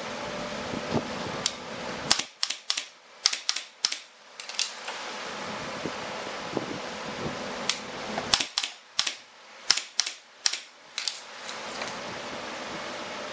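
Sharp wooden clacks and knocks as short wooden slats are set down against one another and pushed into place on a bench frame, in two quick clusters about two seconds in and again near the middle. A steady background hum runs under them.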